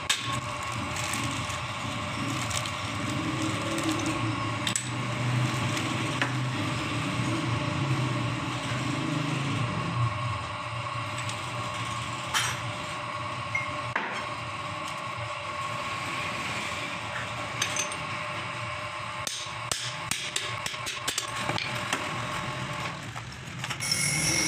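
Scattered, irregular metal taps and knocks as a ball bearing is worked onto the end of a 200cc CNG auto-rickshaw crankshaft held in a steel fixture, over a steady background hum.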